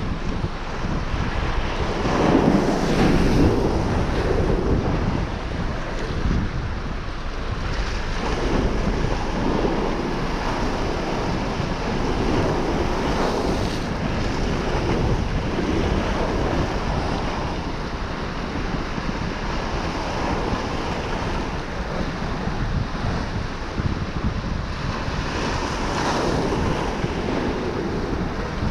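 Strong wind buffeting the microphone over waves surging and breaking against a harbour pier, the rush of noise swelling louder several times.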